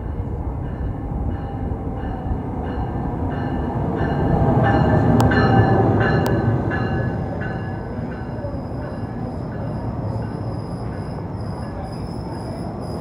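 NJ Transit Multilevel commuter train pulling into the station. The rumble builds to its loudest about five seconds in as the leading cab car passes, under a ringing tone that repeats about twice a second, with two sharp clicks. From about halfway on, a high, steady squeal from the wheels and brakes rises as the train slows.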